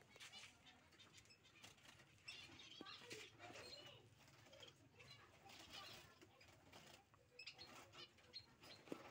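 Faint fluttering of small society finches' (Bengalese finches') wings inside a wire cage as a hand reaches in to catch one, with scattered light rattles and a few faint chirps.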